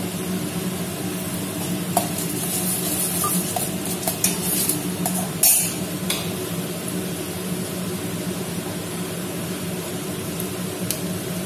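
Oil sizzling gently in a steel pot as dried red chillies fry in a tempering of mustard seeds, chana dal and urad dal, over a steady low hum. A few short scrapes and clinks of a slotted steel spoon against the pot come a few seconds in, the loudest about five and a half seconds in.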